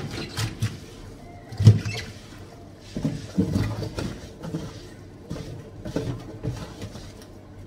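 Wet cloth wiping the inside walls of an oven, rinsing off cleaner foam: irregular rubbing strokes with soft knocks, the loudest about two seconds in.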